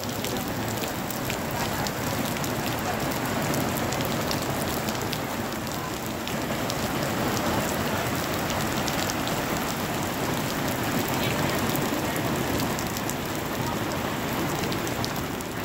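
Heavy rain pouring onto pavement and shrubs: a steady hiss, with frequent sharp ticks of single drops hitting close by.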